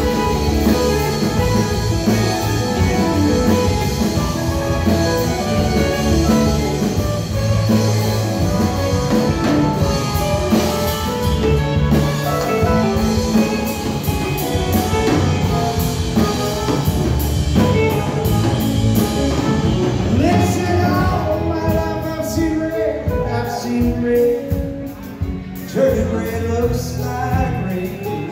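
Live rock band playing: electric guitars, electric bass and drum kit. About two-thirds of the way through the cymbals drop out and the band eases down to quieter guitar and bass lines.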